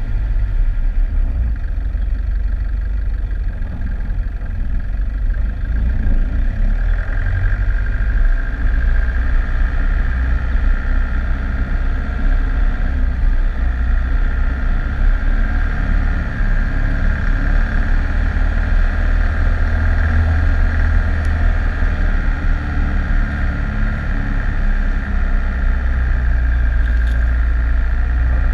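Four-wheel-drive vehicle driving along a rough dirt track: a steady low engine and road rumble with a steady higher whine above it.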